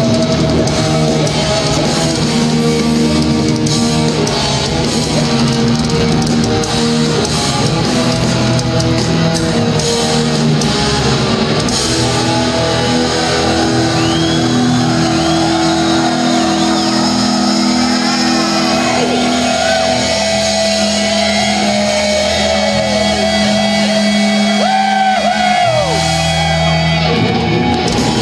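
Thrash metal band playing live and loud in a large hall, heard from within the crowd: heavily distorted electric guitars over bass and drums, with held chords and high notes that slide up and down in the second half.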